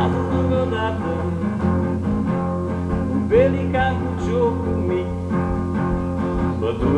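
Acoustic guitar playing an instrumental passage between sung verses, with a few notes sliding in pitch about three to four seconds in.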